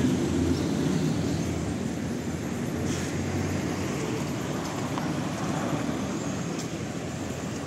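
Steady rumble of vehicle noise with no clear pitch, slowly fading, with a few faint clicks.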